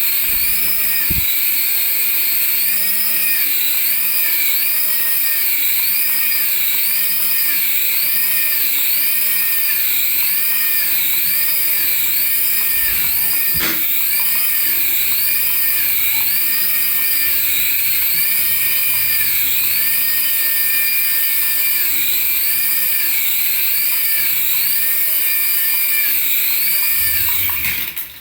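Battery toy's electronic sound effect: a high, warbling siren-like tone rising and falling about once a second without a break, cutting off suddenly at the end.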